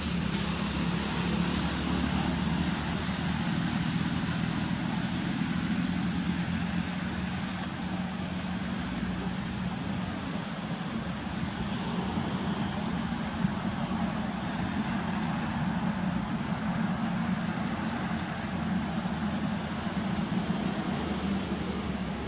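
Steady low engine-like drone under a constant hiss, with a short high chirp near the end.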